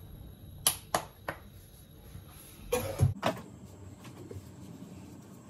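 Kitchen handling at the stove: three sharp clicks about a third of a second apart, then a short scraping rustle and two knocks of cookware.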